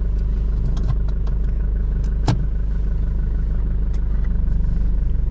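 Toyota Hilux's 3.0-litre four-cylinder 5L diesel engine running steadily, a low drone heard from inside the cab, with one short click about two seconds in.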